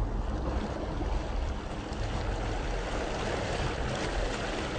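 Steady wind blowing across the microphone over open water, a continuous hiss with a low rumble.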